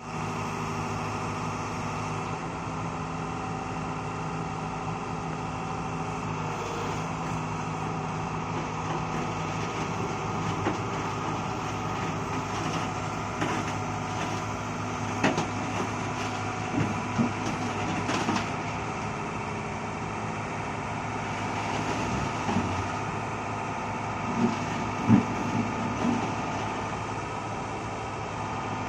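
Diesel engines of excavators running steadily, with a few short metal clanks and knocks in the second half.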